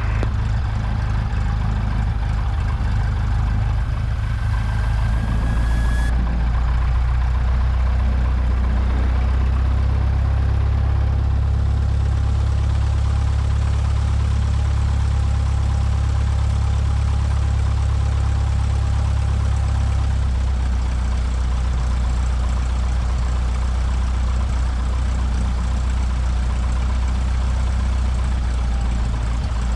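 Cessna 172SP's four-cylinder Lycoming engine running steadily at low power during ground taxi, a deep drone that grows a little fuller for about ten seconds in the middle.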